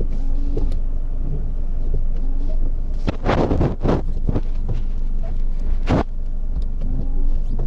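2005 Chrysler PT Cruiser's four-cylinder engine idling steadily, with a brief noisy swish about three seconds in and a sharp click about six seconds in.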